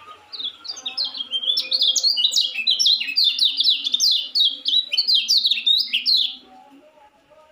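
Young caged white-eye (pleci) singing a fast, unbroken run of high, downward-sweeping chirps, about five notes a second: the 'ngejos' song of a bird still learning to sing. The song breaks off abruptly near the end.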